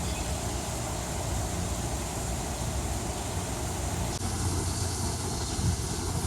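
Steady outdoor noise of light rain falling, with a low rumble underneath; the texture shifts slightly about four seconds in.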